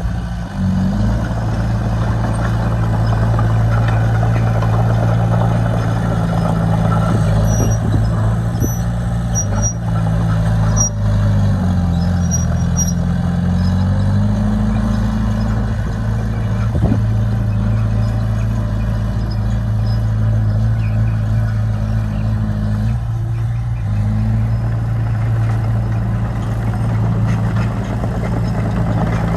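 Heavy diesel engine of earthmoving equipment running steadily under load. Its pitch drops and changes for a couple of seconds about eleven seconds in, then settles back.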